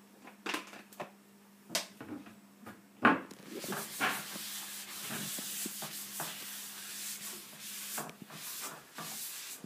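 A few sharp knocks, the loudest about three seconds in, then a steady scratchy rubbing right against the microphone, the phone's handling noise as it is pressed into fur or hair.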